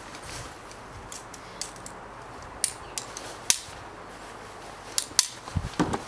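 Sharp metal clicks and clinks of screwgate carabiners and a belay plate at a climbing harness as the rope is handled. A scatter of single clicks, a few louder ones in the second half, with some low handling noise near the end.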